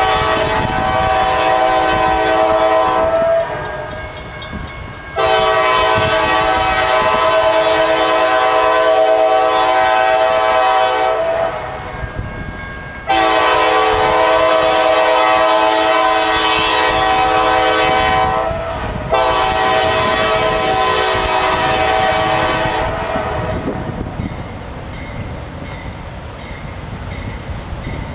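CSX freight diesel locomotive's multi-tone air horn blowing four long blasts for a grade crossing, the last two running almost together, over the rumble of the approaching train. The horn stops a few seconds before the end, leaving the train's rumble.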